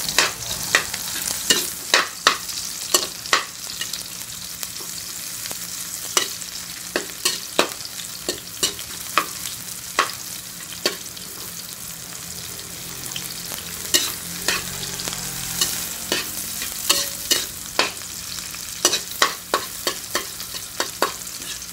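Sliced onions and garlic sizzling in hot oil in a metal wok, with a metal spatula clinking and scraping against the pan as it stirs. The scrapes come thick at the start and again near the end, with a calmer stretch of steady sizzling in between.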